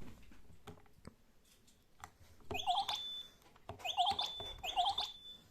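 Toy alarm clock's electronic alarm sounding: three bursts of rapid chirping beeps, each ending in a short held high tone, about a second apart. A few faint clicks come before the first burst.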